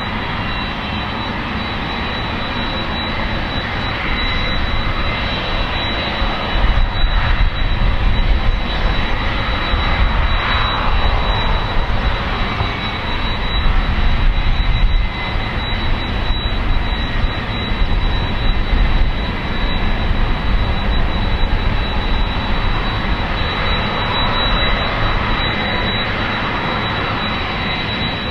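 Boeing 767-300's twin turbofan jet engines running steadily at low power, a continuous rushing jet noise that wavers slightly in loudness.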